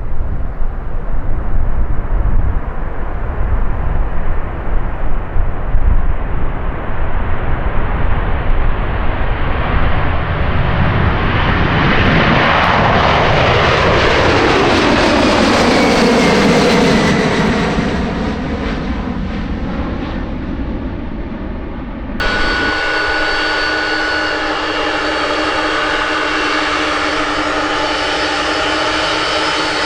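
A large aircraft's engines pass close by: a rumble builds, then the pitch falls over several seconds as it goes past and fades. About 22 seconds in there is an abrupt cut to another aircraft's engines running steadily with a high, even whine.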